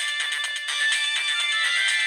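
Ringtone of a Siemens C75 mobile phone playing a busy electronic melody of quick notes with several tones at once, thin-sounding with no bass.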